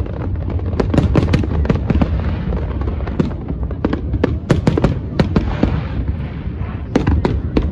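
Fireworks display shells bursting in quick succession: a steady run of sharp bangs and crackles over a continuous low rumble.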